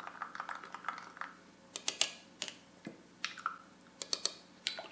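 A spoon stirring yeast, sugar and warm water in a small drinking glass, clicking against the glass in irregular light taps, a few of them ringing briefly.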